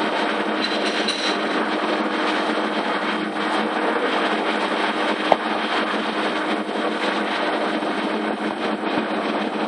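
Deckel Maho DMU 65 five-axis CNC machining centre milling under flood coolant: a steady hiss of coolant spray and cutting over a steady low hum. One sharp click about five seconds in.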